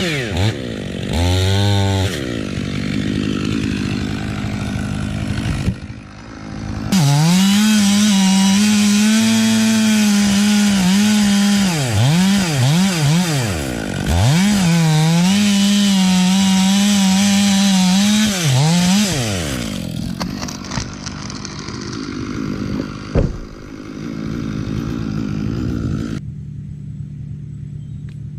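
Gas chainsaw cutting red oak: the engine is throttled down and back up at the start, then held at full throttle for about twelve seconds with several quick drops and recoveries in revs, then eased off to a lower run. A single sharp knock sounds near the end.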